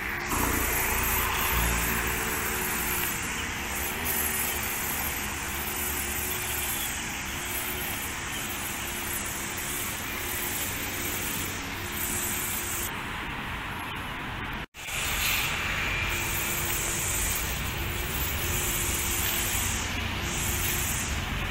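Gasoline grass trimmer's small engine running, its note breaking off and coming back again and again, over steady road-traffic noise.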